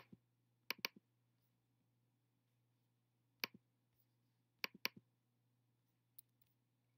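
Sharp computer pointer clicks against near silence: a quick double click about a second in, a single click in the middle, another double click shortly after, and one faint click near the end.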